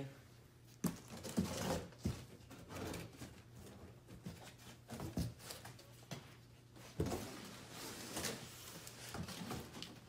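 Scissors cutting the plastic packing straps on a large cardboard appliance box while the box is pushed and handled: scattered snips, knocks, rustles and scrapes of cardboard.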